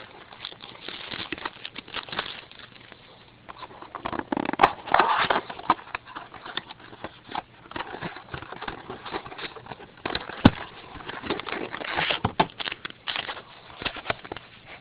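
Crinkling and rustling of a trading card pack's foil wrapper being torn open and handled, with irregular clicks and taps of cards being handled. The busiest crinkling comes about four to five seconds in, and there is a sharp click about ten seconds in.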